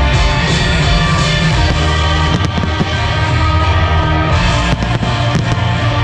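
Loud music with a heavy bass line, and fireworks going off over it: several sharp bangs about halfway through and again near the end.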